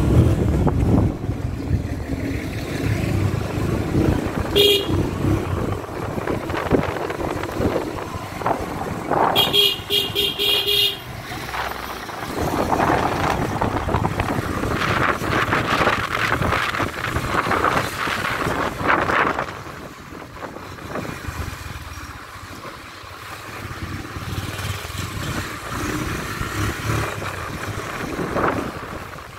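Busy road traffic with vehicle engines running and car horns: a short toot about five seconds in and a longer honk from about nine to eleven seconds. The traffic noise eases a little after about twenty seconds.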